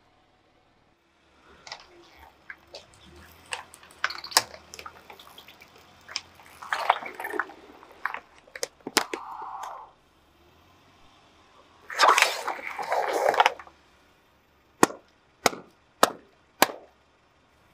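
Liquid-filled balloons and plastic soft-drink bottles being squashed under a slowly rolling car tyre: scattered crackling of plastic and rubber, then two loud spells of crushing and bursting with splashing liquid. Near the end come four sharp single snips of scissors cutting a balloon open.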